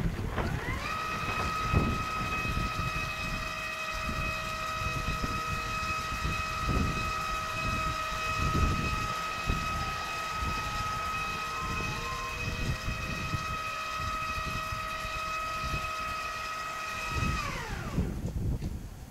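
Powered sliding door's electric drive whining steadily as the door slides shut. The whine rises in pitch as it starts about a second in and falls away as it stops near the end, over a low rumble.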